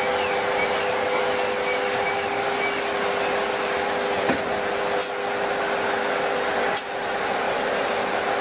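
Forge-shop machinery running: a steady blowing rush with a constant humming tone, broken by a few sharp knocks about four, five and seven seconds in.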